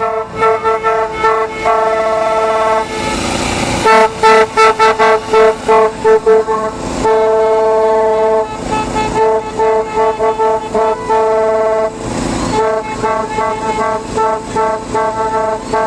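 Several car horns honking together as cars drive past, mixing bursts of rapid short toots with longer held blasts. Twice there is a brief rush of noise.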